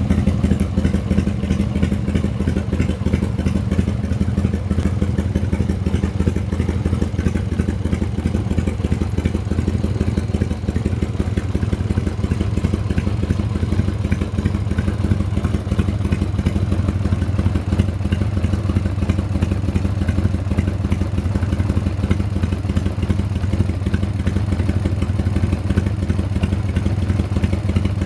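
1995 Harley-Davidson FXDWG Dyna Wide Glide's 1340 cc Evolution V-twin idling steadily.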